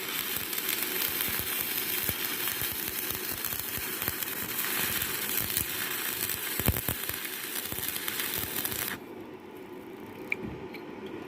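Stick-welding arc crackling steadily as a thin 2 mm electrode burns on thick metal. The arc stops abruptly about nine seconds in.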